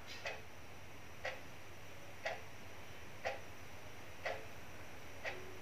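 Clock ticking once a second: light, even ticks over a faint steady hum.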